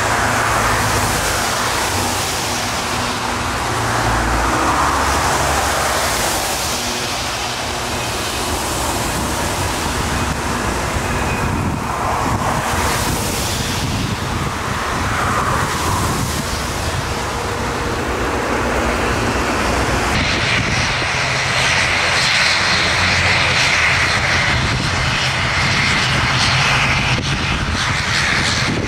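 Airbus A319 twin jet engines at takeoff power on a wet runway, a broad, loud roar that swells and fades slowly. About twenty seconds in it gives way to a twin turboprop airliner's engines running, a steadier hum.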